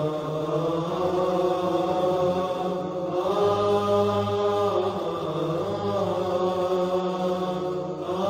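Background vocal chanting: a slow voice holding long, drawn-out notes over a low steady hum, shifting pitch every second or two.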